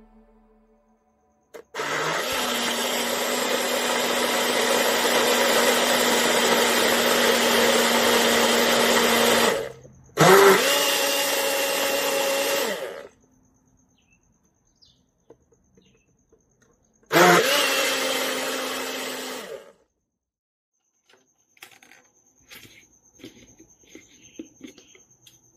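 Personal blender motor running in three bursts as it blends a thick yogurt-and-oat smoothie: a long run of about eight seconds, a short one of about three seconds, and another of about three seconds. Each burst starts with the motor spinning up. Faint light taps and clicks follow near the end.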